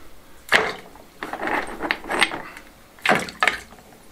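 Loose stones clacking and scraping against each other and a plastic bucket as they are picked over by hand, in four or five short spells of clatter.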